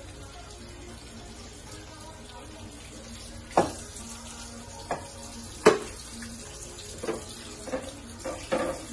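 Kitchen faucet running into the sink while a plate is rinsed by hand, with several sharp knocks of the plate against the sink starting about a third of the way in, the loudest just past the middle.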